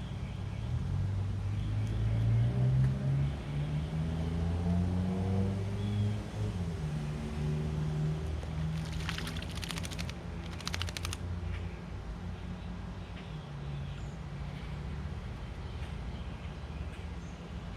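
A low engine drone that rises and shifts slowly in pitch, loudest in the first half and fading after. There are two quick bursts of rapid clicking about halfway through.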